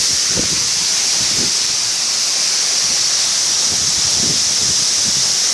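Steady rushing hiss of a waterfall, falling water with no let-up.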